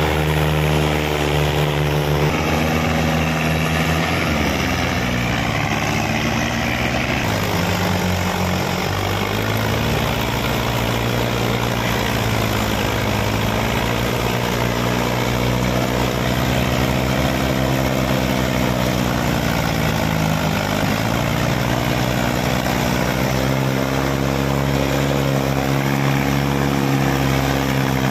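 Diesel engines of a Mahindra 585 DI XP Plus tractor hauling a trolley heaped with soil through sand, with a Mahindra Arjun 555 pushing from behind, both working under heavy load. The engine note shifts about two seconds in, dips around eight seconds, then rises and falls slowly several times.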